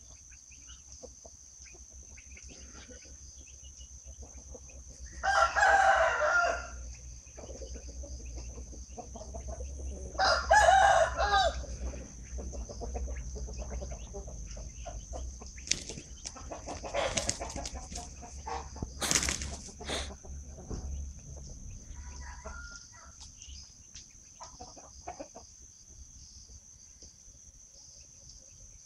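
Rooster crowing twice, each crow lasting about a second and a half, about five and ten seconds in. In between come scattered clucks and a cluster of sharp flapping sounds. A steady high-pitched drone runs underneath.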